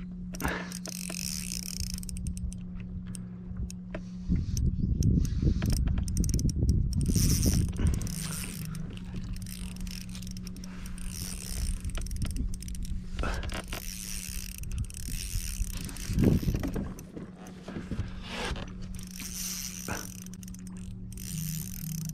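Spinning reel working against a hooked fish: the drag ticking and buzzing as line is pulled off, between spells of the handle being cranked, with the drag set light ('Hollywood drag'). A loud low rumble runs for several seconds starting about four seconds in, over a steady low hum.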